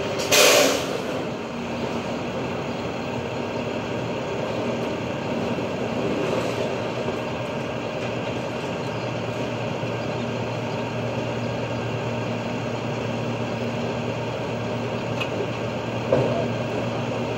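International garbage truck with a Heil body, its diesel engine running steadily, with a short loud hiss about half a second in.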